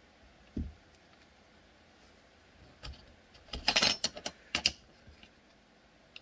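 Small metal rivet hardware and a Kydex piece being handled on a cutting mat: a soft bump about half a second in, then a quick cluster of clicks and rattles around four seconds in.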